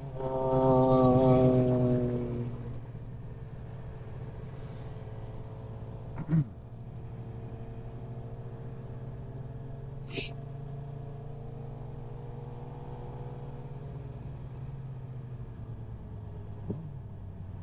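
Suzuki GSX-R sport bike engine revving hard for about two seconds as the bike pulls away, then settling into a steady low running hum while riding. A couple of brief clicks come about six and ten seconds in.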